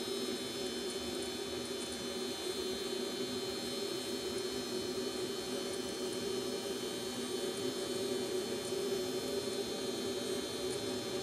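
A steady machine hum with a faint high whine above it, unchanging throughout.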